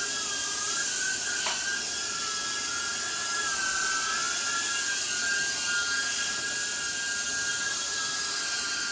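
Eachine E010 micro quadcopter's tiny brushed motors and propellers whining steadily while it hovers, the pitch wavering slightly with throttle corrections. A light tick about a second and a half in.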